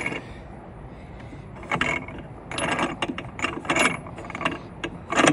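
Plastic Rotopax locking pack mount being screwed down by hand, its knob giving a series of ratcheting clicks as it turns, with a louder click near the end as it seats into the mounting holes.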